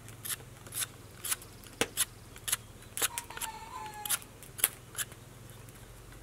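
A knife blade scraping bark off a fresh alder stick, in short rasping strokes about two a second.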